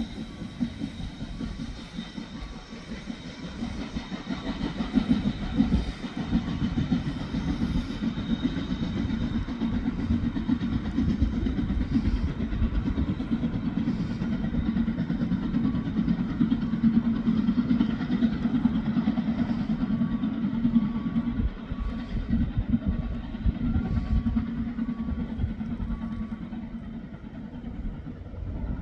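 Metre-gauge steam locomotive 99 7240-7, a 2-10-2 tank engine, working as it pulls its train away along the track, with a steady rumble of the train on the rails. The sound fades near the end as the train recedes.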